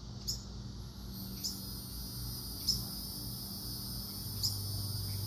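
Fledgling bird giving four short, high chirps about a second or more apart, calling for its parents, over a steady high hiss and a low hum.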